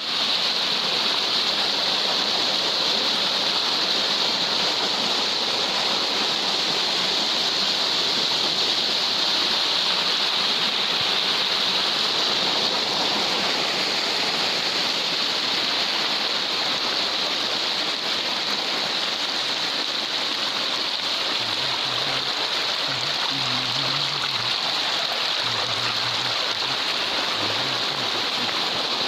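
Floodwater rushing in a steady, unbroken roar of flowing water. Faint low tones come and go in the second half.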